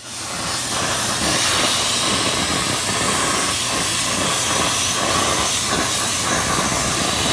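CNC plasma cutter torch cutting through sheet metal: a steady, loud hiss of the plasma arc and its air jet, with a faint low hum underneath.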